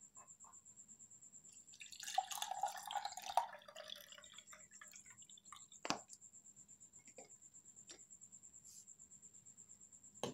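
Warm ginger and cinnamon infusion poured out into a container: a splashing pour lasting about two seconds, followed a couple of seconds later by one sharp knock.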